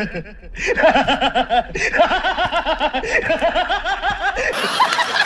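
A man laughing loudly in a long, rapid string of 'ha-ha' bursts that breaks off about four and a half seconds in.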